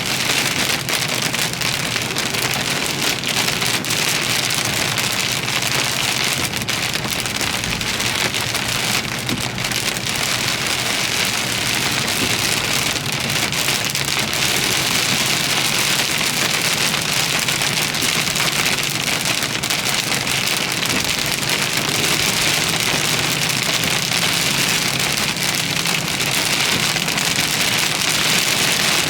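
Heavy rain falling steadily on a car, heard as a dense hiss of countless drops. A faint low hum runs underneath.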